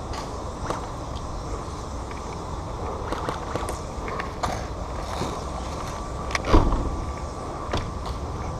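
Rustling handling noise from a body-worn camera, with scattered clicks and knocks and one louder thump about six and a half seconds in.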